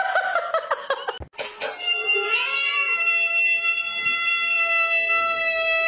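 A cat gives one long, loud meow that starts about a second and a half in, rises at first and then holds a steady pitch. Before it there is a second of wavering, pitch-sliding calls and then a brief break.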